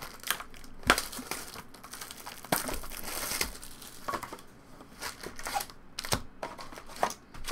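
Crinkly plastic wrapping on Pokémon trading card packaging being torn open and crumpled, in irregular crackles and rips that are busiest from about two and a half to three and a half seconds in.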